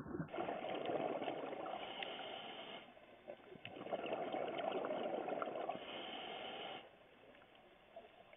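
Scuba diver's regulator exhaling bubbles, heard underwater: two long bubbling rushes of about three seconds each, with a short quieter lull between them.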